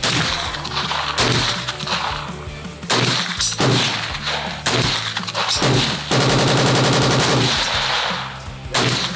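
Gunfire: single shots about a second apart, then about six seconds in a rapid full-automatic burst lasting about a second and a half, then another shot near the end.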